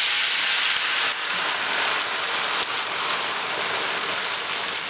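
Sous vide bag juices with butter poured into a hot skillet around searing eye round steaks, sizzling hard. Loudest right at the start as the liquid hits the pan, then a steady, dense sizzle.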